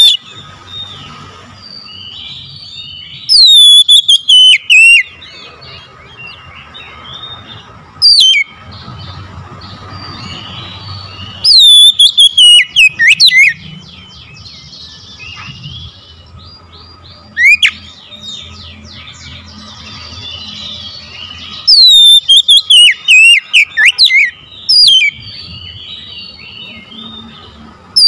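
Oriental magpie-robin singing: five loud bursts of quick, falling whistled notes and phrases a few seconds apart, with fainter chirping running on between them.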